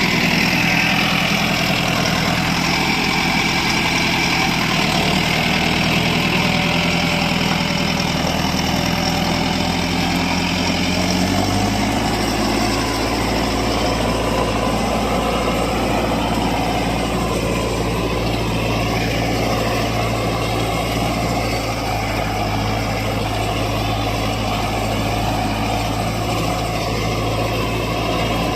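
Tractor engine running steadily, its note dropping to a lower pitch about eleven seconds in.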